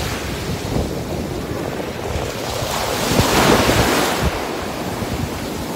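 Small surf breaking and washing up a sandy shore, with wind buffeting the microphone; a wave comes in louder about three seconds in.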